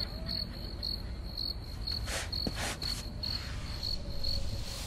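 Crickets chirping in a steady, even rhythm of about three high chirps a second, over a low steady rumble. Two or three soft whooshes come in around the middle.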